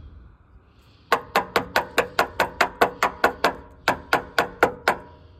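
A rapid run of hard knocks, about five a second with a short break midway, each with a brief ring. It fits a sediment-clogged water heater drain valve being tapped to knock the buildup loose.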